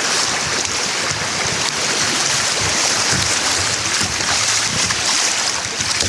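Steady rush of fast, broken river water running around a fishing kayak's hull as it goes down a riffle.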